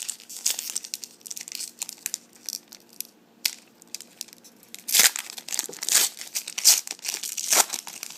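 Foil trading-card pack wrapper being crinkled and torn open by hand, a run of irregular crackles that gets louder about five seconds in.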